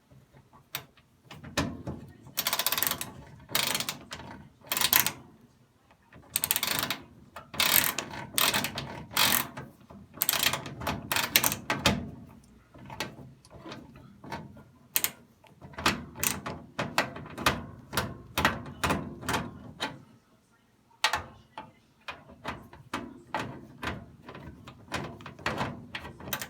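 Ratchet screwdriver clicking in quick runs with short pauses as a screw is backed out of the dryer's panel.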